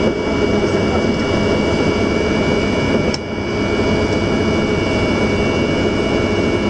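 The An-124 Ruslan's four D-18T turbofan engines running at taxi power, heard from inside the cockpit as a steady roar with a high whine on top. A short click comes about three seconds in.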